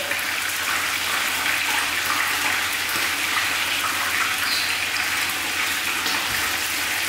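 Whole tilapia just laid into a pan of hot oil, sizzling steadily as they fry.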